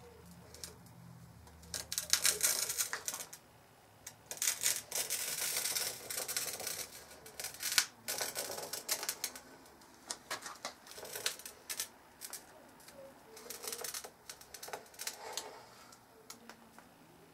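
A wheeled glass cutter scoring a sheet of glass along a steel straightedge, heard as several high, scratchy strokes. The longest stroke lasts about three seconds.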